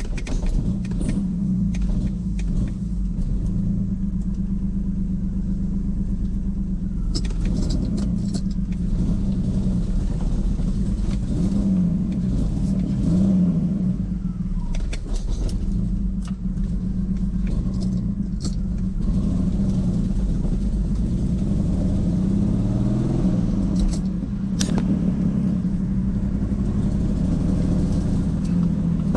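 Turbocharged BMW E46 engine running with a steady low rumble, its pitch wavering a little in places, with a few short clicks. The engine has a misfire.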